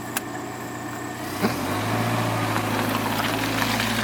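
A vehicle engine running with a steady hum and a single click near the start. About a second and a half in, the engine note rises and a steady rushing noise builds, as of the vehicle pulling away.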